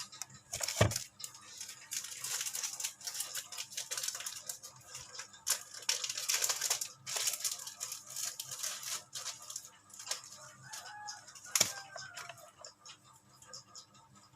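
Packaging being handled during an unboxing: irregular crinkling and rustling with many small clicks, heaviest in the middle. Two sharp knocks stand out, one about a second in and one near the end.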